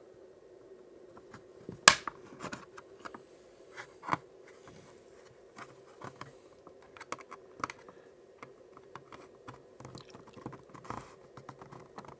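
The plastic snap-fit clips of a 4G router's case click and crackle as a spudger pries the lid away from the base. There is one loud snap about two seconds in, a clear click about four seconds in, and small ticks in between.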